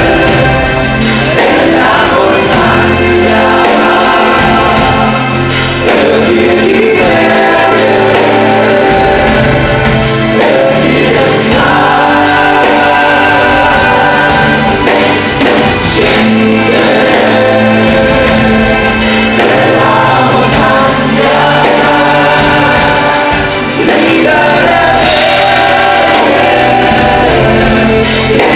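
Live band performance: several men singing together in choir-like harmony over electric bass and drums, played loud through the concert sound system.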